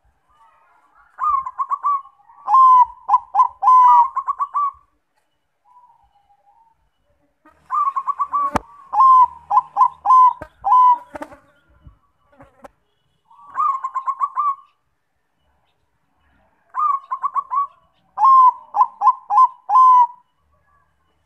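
Zebra dove (Bangkok-type perkutut) singing its cooing song: four bouts, each a quick run of short coos a few seconds long, with pauses between. A single sharp click falls partway through.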